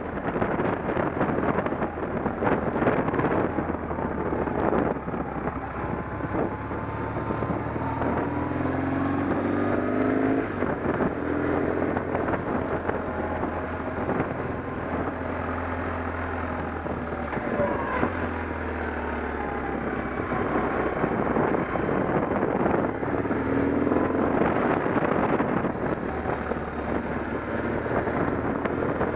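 An engine running steadily, its low hum shifting in pitch now and then, with wind noise on the microphone.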